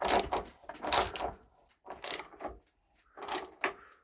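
Ratchet wrench with a 1-1/16 inch socket tightening a water heater anode rod's hex head: about four ratcheting strokes, roughly one a second, getting quieter towards the end as the rod seats.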